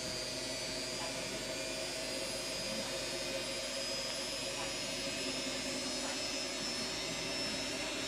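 Electrolux front-loading washing machine running, a steady mechanical hum with a faint high motor whine.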